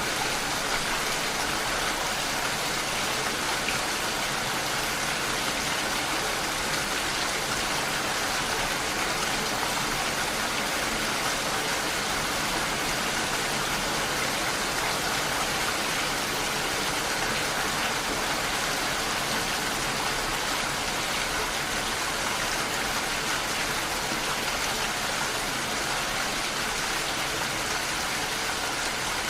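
Steady, even rain falling on window glass, with no change in strength.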